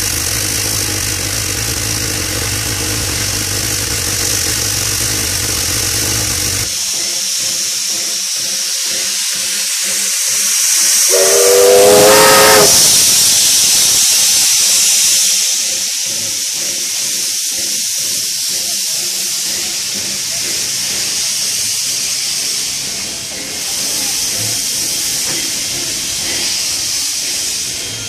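NSWGR 32 class steam locomotive 3265 standing with steam hissing steadily, over a low hum that stops about seven seconds in. About eleven seconds in, its steam whistle gives one blast that rises in pitch, followed by a louder rush of steam for a few seconds.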